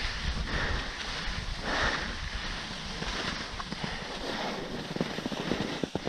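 Skis hissing and scraping across soft spring snow, with wind rumbling on the GoPro's microphone. The scraping swells twice early in the turns, and a quick rattle of small clicks comes in the last couple of seconds.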